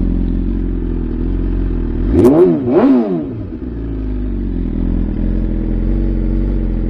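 2021 BMW S1000RR inline-four idling through an Akrapovic titanium full exhaust with the GP short muffler, blipped twice in quick succession about two seconds in, the revs rising and falling each time before it settles back to a steady idle.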